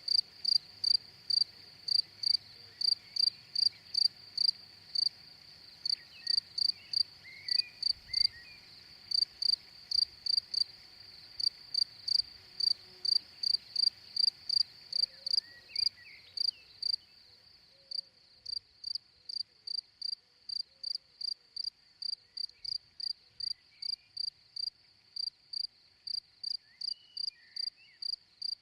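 A cricket chirping in a steady rhythm of short, high chirps, about two to three a second, with a few brief pauses.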